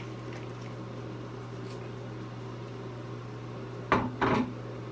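A bottle of apple cider vinegar being shaken by hand over a steady low hum. About four seconds in, two loud clunks sound, something handled on a hard surface.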